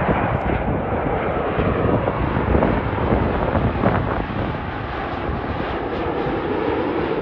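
Jet airliner engine noise as a plane passes near the airport, a steady rushing rumble that swells slightly in the middle.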